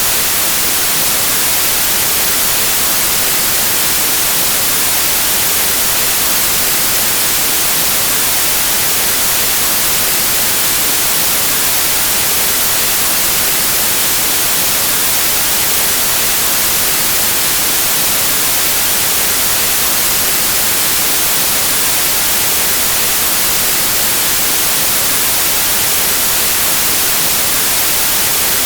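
Steady white noise: an even, unchanging hiss, brightest in the treble, with no tones or breaks.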